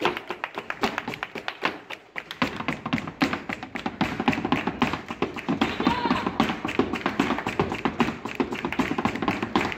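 Flamenco footwork (zapateado): rapid, dense heel and toe stamps of a dancer's shoes on a stage, with hand-clapping (palmas) and guitar accompaniment.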